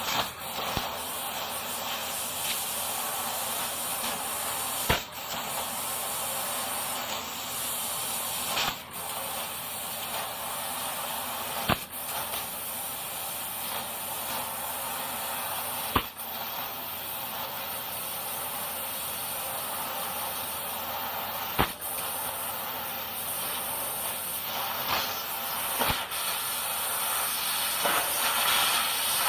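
Raycus 1 kW fiber laser cutting machine cutting sheet metal: a steady hiss of assist gas and cutting, broken by a sharp click every few seconds, about six times.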